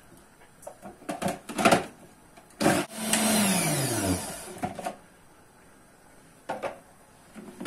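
Countertop food processor chopping peppers and garlic: the motor starts with a jolt, whirs for about a second and a half, then winds down in falling pitch. Clicks and knocks of the plastic bowl and lid come before and after.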